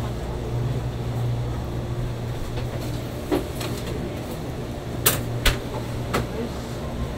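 Steady low machine hum of shop equipment, with a few sharp clicks and taps in the second half, the loudest two close together about five seconds in.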